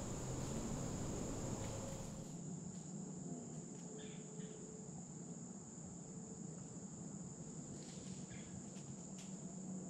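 Steady high-pitched chorus of crickets, with a few faint ticks and rustles. A low rumble drops away about two seconds in.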